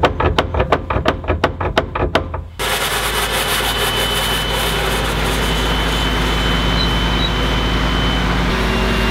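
Rapid metallic knocking, about five strikes a second, from a tool working a seized stanchion pin out of a boat stand. About two and a half seconds in it gives way to a sandblaster spraying: a steady, loud hiss over a low engine drone.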